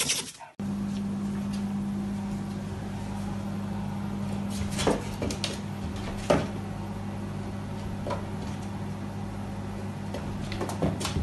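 A cat's paws tapping and knocking against a glass door panel a few times, over a steady low electrical hum. The sharpest tap comes about six seconds in. A brief loud rush cuts off in the first half-second.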